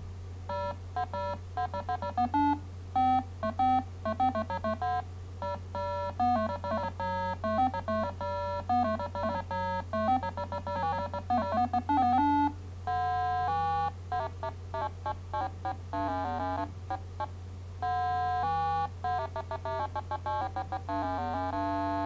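Electronic doorbell tune played as a fast run of beeping notes by a simulated PIC16F84A microcontroller driving a sounder: the second of its two selectable tunes. It has a short break about halfway, with a steady low hum underneath.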